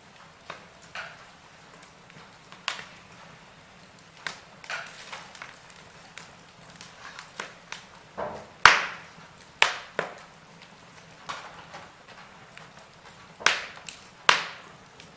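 Wood fire in a fireplace crackling: irregular sharp pops and snaps over a faint hiss, with the loudest snaps in the second half.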